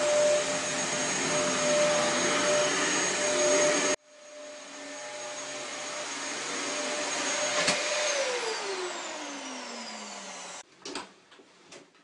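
A Hoover vacuum cleaner, clogged up, running with a steady high whine. The sound drops away suddenly about four seconds in and then builds back up. About eight seconds in there is a click, and the motor whine falls steadily in pitch as it winds down, stopping shortly before the end, with a few faint knocks after it.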